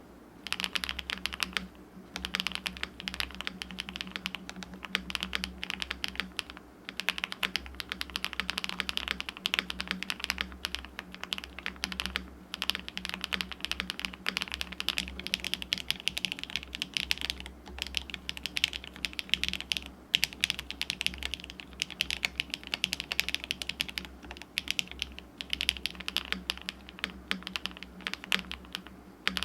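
Typing on a DR-70F mechanical keyboard fitted with stock HMX Swift switches on a polycarbonate plate and MoDo 2 keycaps: fast, continuous key clicks that start about half a second in and pause briefly every few seconds.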